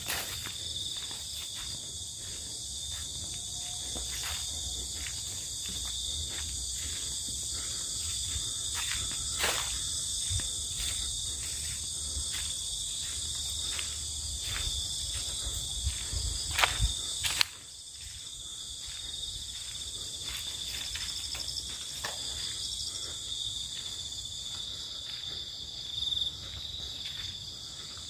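Dusk insect chorus: a steady, high-pitched shrill trilling of many insects in several overlapping pitches. Scattered faint clicks and a low rumble run beneath, with a few louder knocks a little past halfway, after which the rumble drops away.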